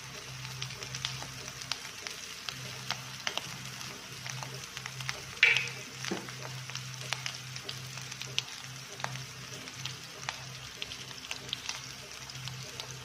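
Potato cutlets shallow-frying in a little oil on a non-stick tawa: a steady sizzle with many small pops and crackles, and one louder, sharper crackle about five and a half seconds in.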